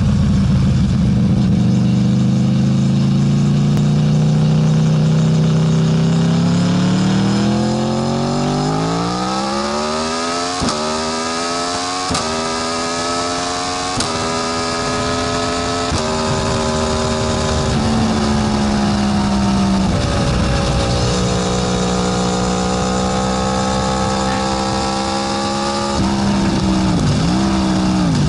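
Aprilia RSV4's V4 engine through a Termignoni exhaust, heard from on board, pulling hard through the gears: the revs climb, then four quick upshifts follow about two seconds apart, each a short crack with a drop in pitch. It then runs at a steady speed, and near the end the revs dip and come back several times.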